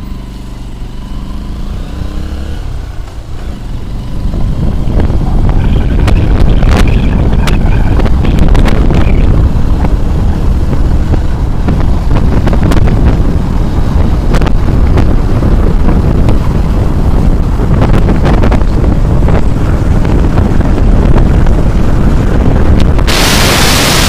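Motorcycle engine running as the bike rides along a road, its pitch audible at first. From about four seconds in, heavy wind rumble on the microphone drowns it out. A loud hiss comes in near the end.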